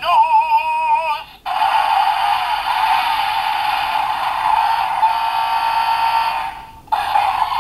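Bandai DX Zyuoh The Light toy playing its electronic sounds through its small speaker: a wavering synthesized sung phrase, then a long steady electronic tone that fades out about six and a half seconds in, with a new sound starting shortly before the end.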